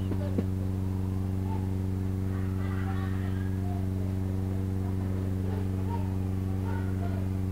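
Steady electrical mains hum from the microphone and sound system: a low buzz with many evenly spaced overtones that does not change. Faint voices murmur in the background a few seconds in.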